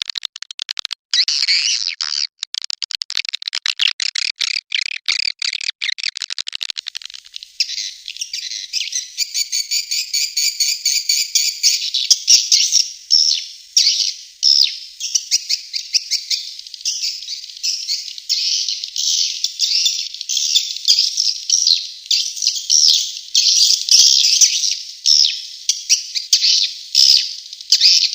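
Swiftlet roosting calls, as played to draw swiftlets into a nesting house: a fast run of dry clicks for the first several seconds, then a dense, unbroken chatter of high chirps and twitters.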